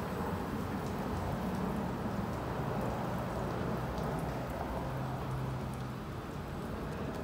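WashTec Combiwash Silverlight rollover car wash: water spraying and dripping onto the car and floor, like heavy rain, over a low steady machine hum.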